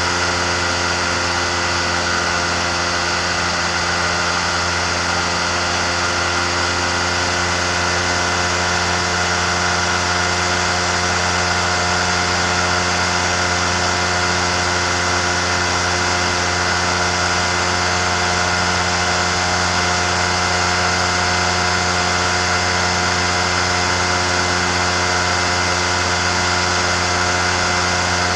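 Pusher engine and propeller of an amphibious flex-wing microlight trike running steadily in cruising flight, holding one unchanging pitch.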